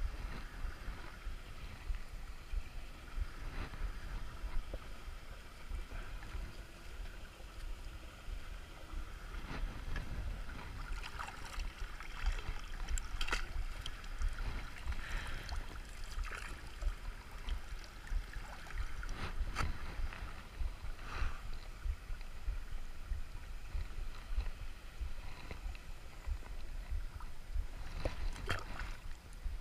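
River water sloshing and splashing as someone wades and pulls debris out of it. Sharper splashes come in a run in the middle and again near the end, over a steady low rumble.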